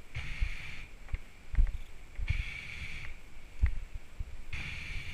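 Footsteps thudding on grass with a hissing breath about every two seconds, three times, from a paddler walking with his kayak on a portage.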